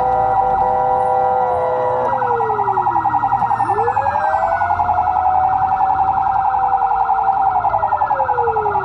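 Fire truck sirens on an emergency run: a steady blaring tone for about the first two seconds, then a rapid warbling yelp, with a wailing siren sweeping down and back up over it.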